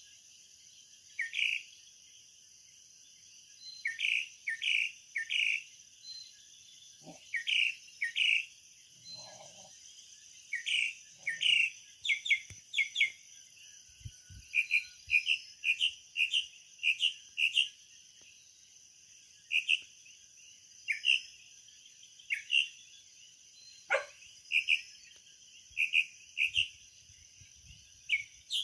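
A night chorus of short, rising chirps repeated in quick clusters of two to four, over a steady high-pitched insect drone. A single falling whistle sounds once, late on.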